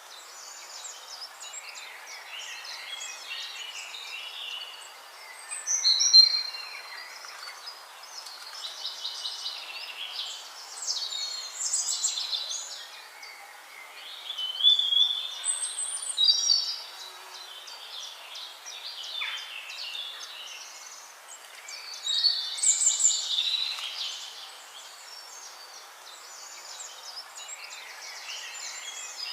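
Several wild birds calling at once: a busy chorus of short chirps and whistled notes over a steady background hiss, with louder bouts of calls about six seconds in, around twelve and sixteen seconds, and again near twenty-three seconds.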